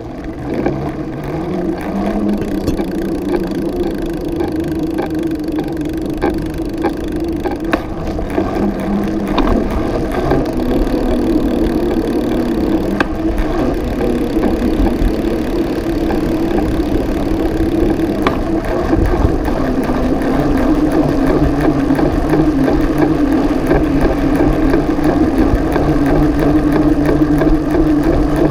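Riding noise of a bicycle picked up by a camera mounted on its frame: a steady hum and rushing from the tyres and passing air, with a few sharp rattles from bumps, growing louder as the bike picks up speed.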